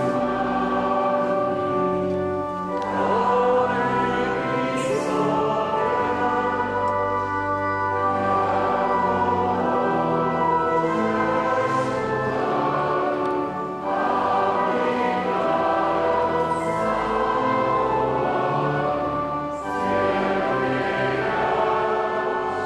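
Church choir singing a Christmas carol with pipe organ accompaniment, in long held phrases with a short break about every five to six seconds.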